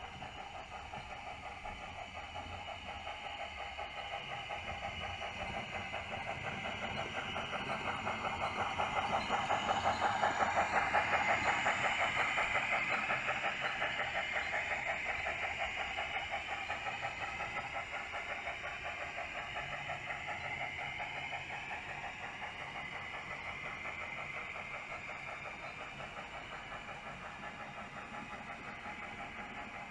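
00 gauge Bachmann Austerity 2-8-0 model locomotive running with its DCC sound decoder, a fast steady chuffing over the hum and rattle of the model's wheels and motor on the track. It grows louder as the train passes close, loudest about ten seconds in, then fades away.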